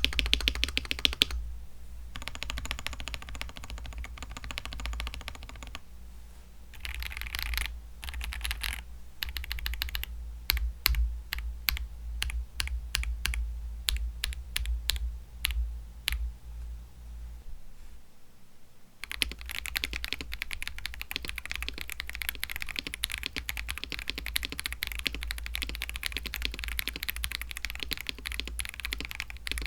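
Typing on a mechanical keyboard fitted with stock, unlubricated Akko CS switches. Fast, dense typing gives way to separate, slower keystrokes from about six seconds in, then fast typing resumes at about nineteen seconds.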